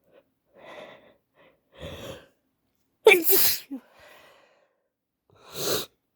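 A woman with a stuffy head cold sneezing: two catching in-breaths, then a loud sneeze about three seconds in, and a second, quieter burst near the end.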